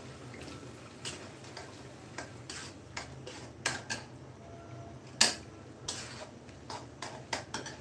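Metal spatula clinking and scraping against a wok as diced potatoes are stirred into a simmering masala: irregular clicks and knocks, with one sharper knock about five seconds in.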